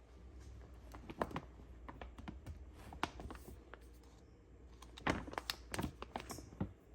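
Scattered light clicks and taps of small objects being handled, in clusters about a second in, around three seconds in, and between five and six seconds in.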